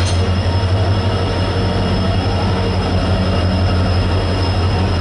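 Indian Railways passenger coaches rolling along a station platform: a steady, loud low rumble with thin high squeals from the wheels on the rails.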